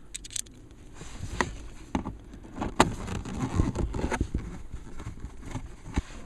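Scattered clicks and knocks of hand work on a car's plastic dashboard trim while the side-panel screws behind the glove box are put in, with a stretch of rubbing and handling noise in the middle.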